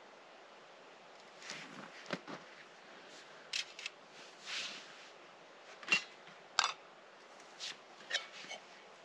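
Camp cooking kit being handled, setting up a brew: irregular small clicks, taps and short scrapes, with two sharper clicks about six seconds in.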